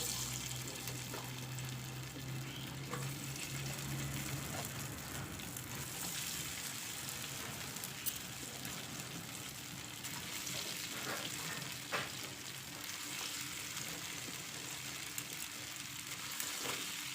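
Cauliflower pieces coated in cornflour and rice flour frying in hot oil in a pan: a steady sizzle with a few small crackles and spatters.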